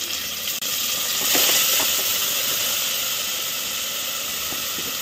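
Chopped tomatoes sizzling as they land in hot oil with frying onions in a pressure cooker pan: a steady hiss that swells about a second in and then slowly eases off.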